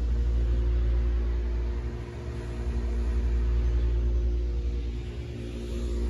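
Low, steady rumble with a steady hum over it, easing briefly about two seconds in and again near the end.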